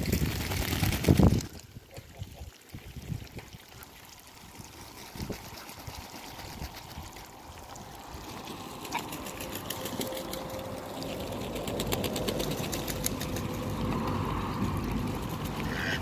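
Ducks and geese feeding in and around a muddy puddle: soft, rapid clicking of bills with small water sounds, after a loud noisy burst in the first second and a half.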